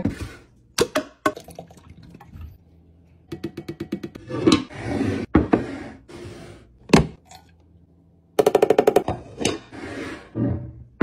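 Liquid laundry product poured from a bottle into a glass dispenser, glugging in two quick runs, with splashing of liquid into liquid and several sharp knocks of glass.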